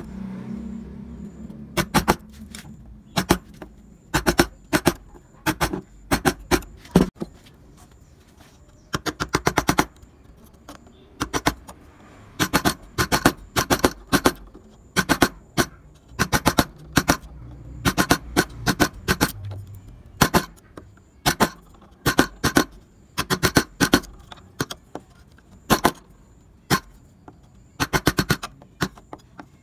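Carving gouge being tapped into wood with a mallet, cutting a small scroll ornament: sharp taps in quick bursts of several, with short pauses between bursts.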